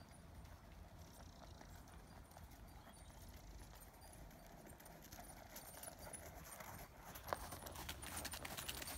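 Horse's hoofbeats on the arena surface, faint at first and growing louder near the end as the horse comes close, with one sharper click about seven seconds in.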